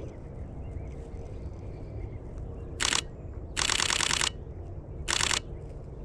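DSLR camera shutter firing in continuous bursts: a short burst, a longer run of rapid clicks, then another short burst.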